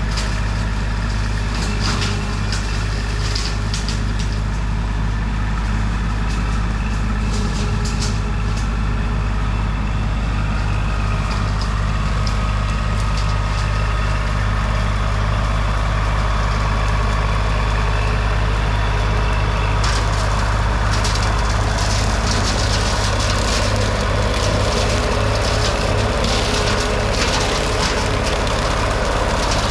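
Kubota L2502 compact tractor's three-cylinder diesel engine running steadily at working speed, with scattered sharp crackles over it. The crackles grow denser from about twenty seconds in.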